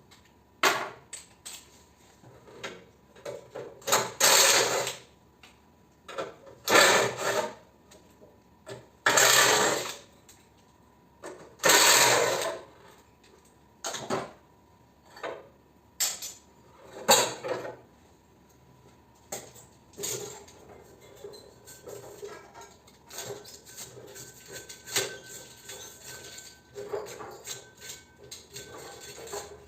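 Small power tool, run in short bursts of about a second, five times in the first half, while a mini-split air conditioner is taken apart for scrap. Between the bursts and after them come scattered metal clicks and clinks of parts being handled.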